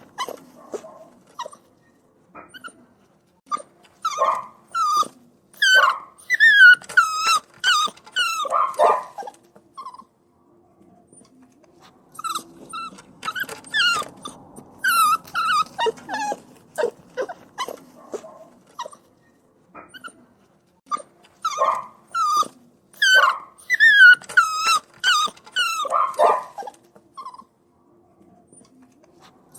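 Puppy whining and crying: high-pitched whimpers and yelps that fall in pitch, coming in three bouts of several seconds with short pauses between.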